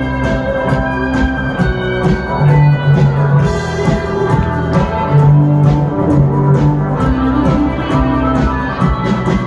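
Live rock band playing an instrumental passage, with guitar, bass notes and a drum kit keeping a steady beat.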